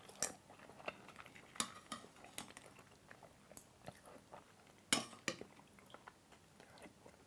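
A person quietly eating soup with a metal spoon: scattered small mouth clicks and chewing, and the spoon clinking against the bowl. The sharpest clink comes about five seconds in.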